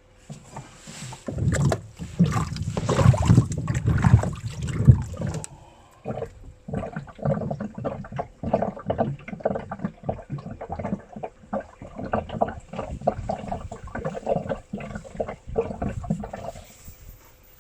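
Washing machine churning taro corms in water, a jumble of sloshing and knocking in the tub. Heaviest in the first few seconds, then a run of pulsing churns that stops near the end.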